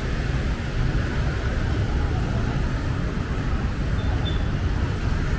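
City street traffic: motorbikes and cars passing with a steady low rumble.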